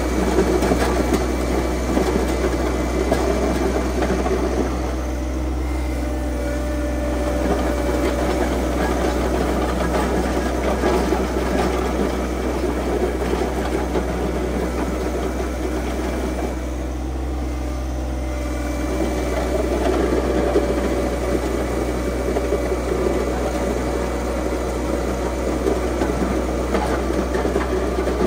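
Tractor engine running steadily while grading with a loader-mounted box blade, its sound easing off briefly twice.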